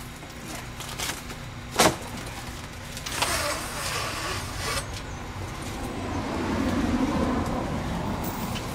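A golf cart's fabric side curtain being unsnapped and pulled off: a sharp snap about two seconds in, the loudest sound, then the curtain rustling and flapping as it comes free.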